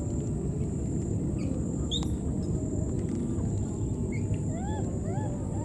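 Outdoor forest ambience: a steady low rumble with a constant thin high whine. There is one short chirp about two seconds in, and a quick run of four short rising-and-falling chirping calls near the end.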